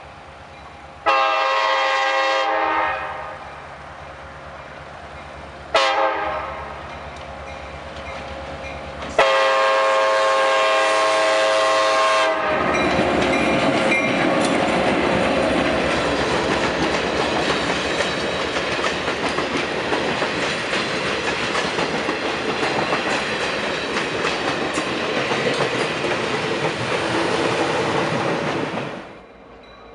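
Locomotive horn sounding three blasts, long, short, long, the last running straight into a train passing close by with loud wheel clatter over the rail joints for about fifteen seconds, which drops away near the end.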